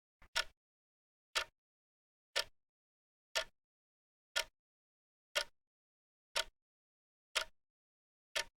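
Wrist watch ticking, one short, crisp tick each second with silence between ticks.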